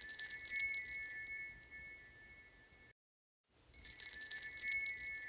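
A high, shimmering sparkle chime sound effect, tinkling and fading away over about three seconds, then after a short silence starting again and fading once more.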